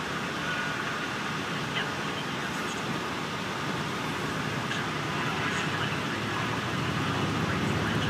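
Cabin noise inside a 2005 MCI D4500CL coach bus: the diesel engine and road noise, steady at first, then growing louder from about halfway through as the coach gets under way.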